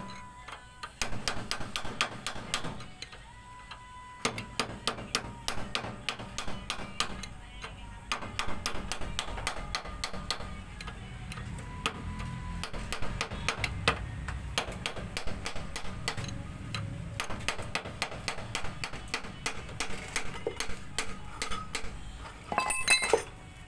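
Hammer tapping repeatedly on a steel drift set against the wheel hub of an Isuzu Elf truck: quick metallic taps, several a second, with a louder clatter near the end. Background music plays underneath.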